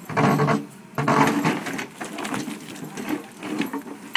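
Caterpillar 432E backhoe bucket digging into soil and stones, scraping and grating. Two loud bursts come in the first two seconds, followed by shorter, irregular scrapes.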